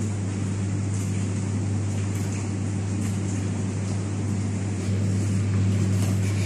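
Whirlpool bathtub's jet pump running with a steady hum while the jets churn and bubble the water; it gets a little louder about five seconds in.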